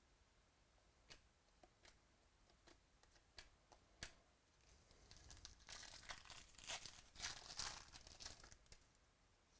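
A few light clicks and taps, then, from about five seconds in, a card pack's foil wrapper being torn open and crinkled for about four seconds.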